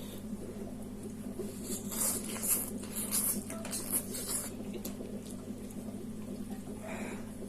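Eating sounds: spicy instant noodles being slurped and chewed in a cluster of short, hissy bursts between about two and four and a half seconds in, over a steady low hum.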